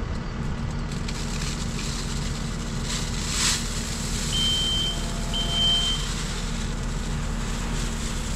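Compact track loader's diesel engine running steadily while its bucket pours turkey grit into a tile trench. The gravel pours with a hiss that swells about three seconds in. Two short high beeps come near the middle.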